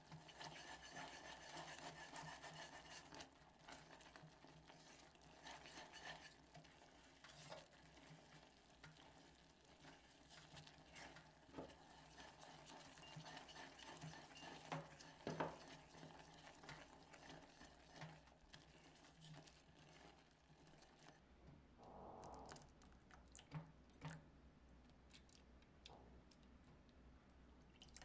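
Silicone spatula stirring and scraping a boiling, foaming caramel base of sugar, syrup, butter and milk in a stainless steel saucepan, with a soft sizzle of bubbling and small scrapes and clicks against the pot. The bubbling falls away about two-thirds of the way through, leaving only scattered light clicks.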